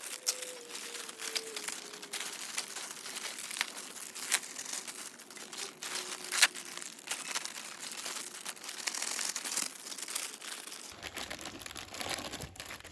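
Crinkly foil potato-chip packets being handled and emptied, with the chips crackling and rattling as they are mixed together: a steady run of sharp crackles.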